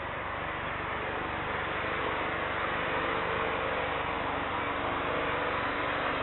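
Airbus A321neo jet engines at taxi power, heard from afar: a steady hiss with a faint hum, slowly getting louder.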